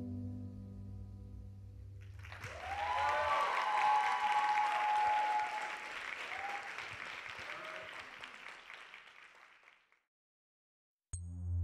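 Audience applause with whoops and cheers breaking out about two seconds in, over the last piano chord of the dance music as it dies away; the clapping swells, then fades out. Near the end a sudden cut to silence, followed by a synth chord starting.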